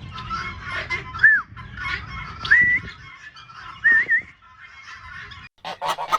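Bird calls: three short whistled notes, each a quick glide, over a steady chatter of other calls, then an abrupt cut to a few sharp clicks near the end.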